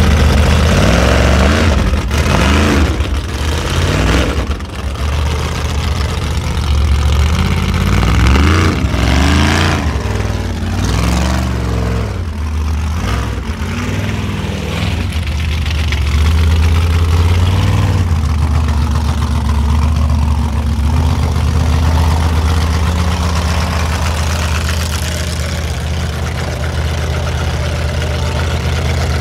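Formula Offroad buggy's high-powered engine revving hard in repeated rising and falling bursts as it climbs a steep gravel slope, then running steadier and lower from a little past halfway.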